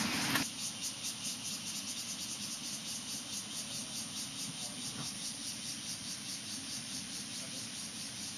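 Insects chirping steadily in a high, even pulse of about four beats a second.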